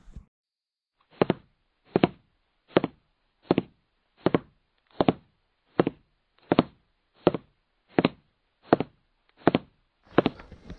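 A steady beat of single knock-like hits, thirteen in all, about one every three-quarters of a second, with dead silence between: a percussion beat added in editing over the muted camera sound.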